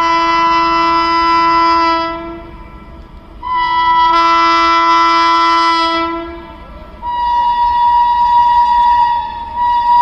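WAG-9 electric locomotive's air horn sounding long, loud blasts, several notes at once, as the freight train approaches. One blast fades out about two seconds in, a second runs from about three and a half to six seconds, and a third starts at about seven seconds and is still sounding at the end.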